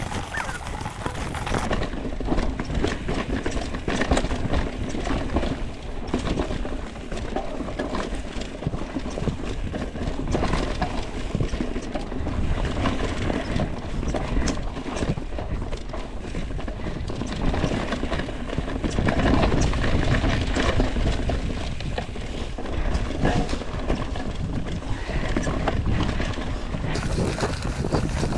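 Mountain bike ridden over a rocky, leaf-covered trail: tyres crunching over leaves and rock, with the bike rattling and knocking over the bumps.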